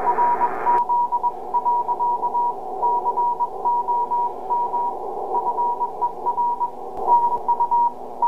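Morse code (CW) signal heard through the Drake TR-4Cw transceiver's speaker: a single-pitched beep keyed in dots and dashes over a background of band static. It starts about a second in, right after a wider voice-band signal cuts off.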